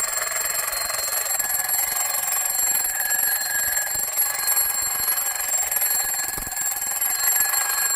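Alarm clock's motor-driven alarm ringing continuously and loudly without a break. It is the sign that the alarm works again after its broken lever and lock were repaired.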